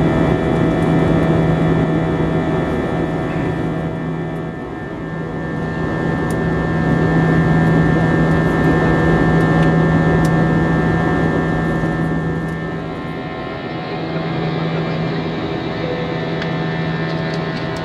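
Cabin noise of an Airbus A320 in flight, heard from a window seat beside the wing: its IAE V2527 turbofan engines and the airflow give a steady drone with a low, even hum. The sound eases off a little about three-quarters of the way through.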